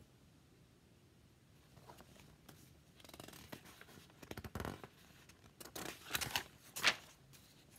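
Pages of a picture book being turned: soft papery rustling with several sharp flicks of the pages, starting about three seconds in.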